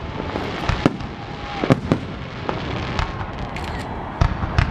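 Aerial fireworks in a show finale: shells launching and bursting overhead, about seven sharp bangs at uneven gaps over a steady hiss. Faint whistling tones glide down in pitch between the bangs.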